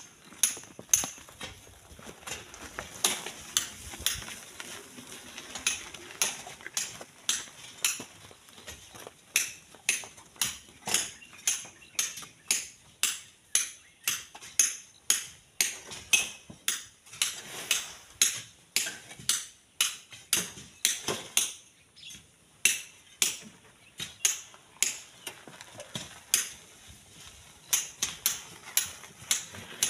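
Iron hand tools striking stone and packed sand in a steady run of sharp metallic clinks, about two a second.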